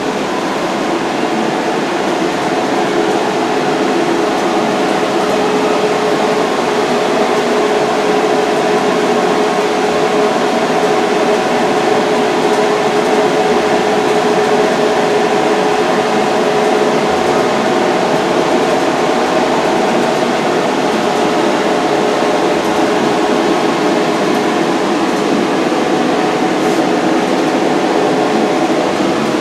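Steady, loud whir of equipment-room ventilation, with a few steady humming tones running through it.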